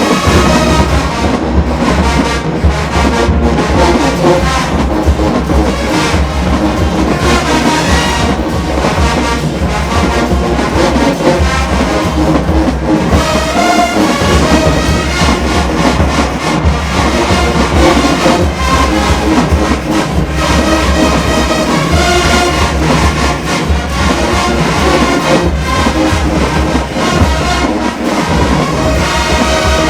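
A full marching band playing continuously and loudly, with brass (trombones, trumpets) over a heavy low drum line.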